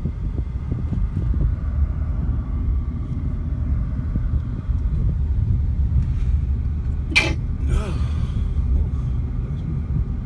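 Steady low rumble of a car on the move, heard from inside the cabin: road and wind noise. About seven seconds in, a short cough-like sound, followed by a brief murmur from a voice.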